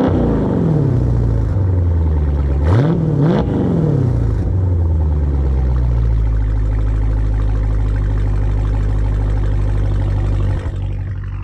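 Dodge Challenger's V8 revved at the exhaust: a rev falls away at the start, two quick blips about three seconds in, then it settles to a steady idle. The revs are capped by a 3500 rpm stationary rev limiter.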